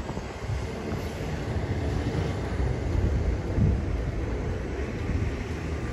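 Wind buffeting the microphone: a low, uneven rumble.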